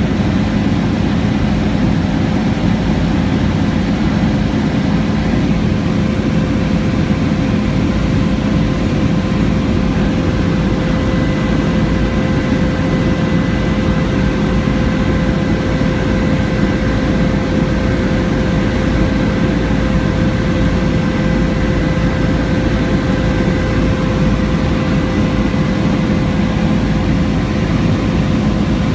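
Bell 407 helicopter in flight, heard inside the cabin: a loud, steady drone of its turboshaft engine and rotors, with a faint steady whine on top.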